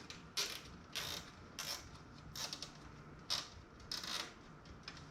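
Nylon zip ties being pulled tight, a series of about six short ratcheting zips.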